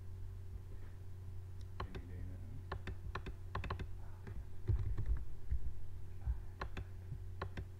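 Typing on a computer keyboard: a run of irregular key clicks starting about two seconds in, over a steady low hum.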